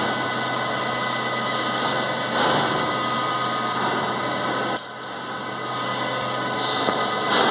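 Doosan DNM400 vertical machining centre running, a steady mechanical hum with several held tones. A single sharp clank comes a little under five seconds in.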